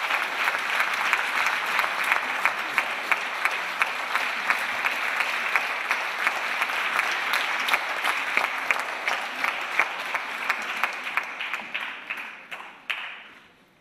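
Audience applauding, dense and steady, then dying away over the last two seconds with a final stray clap.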